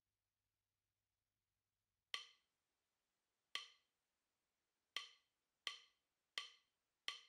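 Six short, sharp wood-block-like knocks opening a lo-fi background music track. The first comes about two seconds in, the next two about a second and a half apart, then three quicker ones under a second apart.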